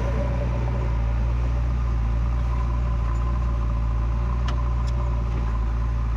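Heavy diesel engine of earthmoving machinery running steadily at constant speed: a low drone with a faint whine over it, and two light clicks a little before the end.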